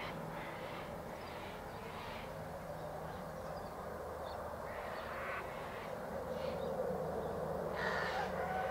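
Crows cawing, a string of short harsh calls every second or so over a steady background hiss, with a thin whistle near the end.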